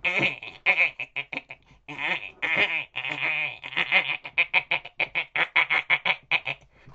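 A man's voice imitating a dolphin: squeaky, wavering whistle-like squeals and chattering clicks. The chatter turns into a fast, even rattle of short squeaks in the second half.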